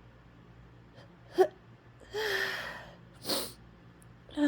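A woman fighting off a sneeze with hitching gasps. A short, sharp catch of breath comes about a second and a half in, followed by a long drawn-in gasp with a voiced "ah" and then another sharp breath.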